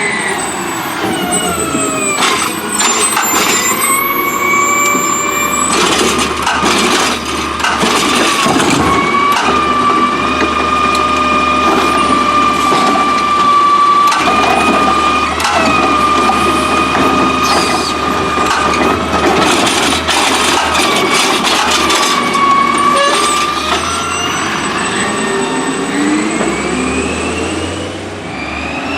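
Autocar ACX garbage truck with a Heil Rapid Rail automated arm, giving off the high whine these trucks make at idle. The whine drops in pitch as the truck slows, holds steady, then rises again near the end as the truck pulls away. Clattering and bangs come twice while it idles, typical of a toter being lifted and dumped into the hopper.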